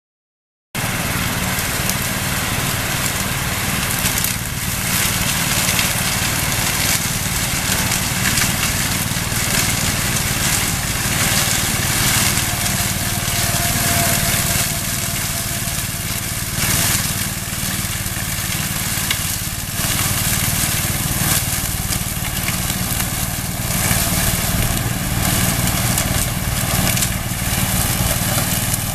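Riding lawn mower used as a brush cutter, its engine running steadily under load while the blades chop and shred tall brush, with irregular crunching as the stems are cut. The sound starts abruptly about a second in.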